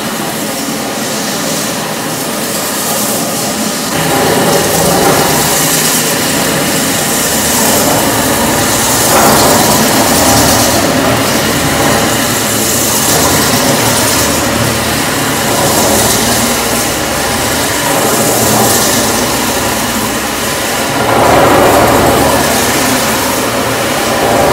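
Electric wet floor-grinding machine running, its grinding head grinding a stone floor under a water feed. A steady grinding whir that grows louder about four seconds in and then swells and eases every few seconds.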